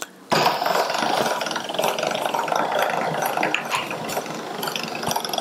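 Hand-cranked chrome pasta machine turning, its gears rattling steadily as a sheet of egg-pasta dough feeds through the rollers; it starts a moment in.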